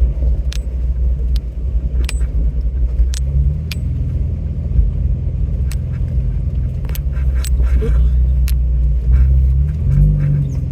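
Off-road vehicle driving slowly over a rough dirt road, heard from inside the cabin: a steady low engine and road drone, with repeated sharp clicks and rattles as the vehicle jolts over bumps.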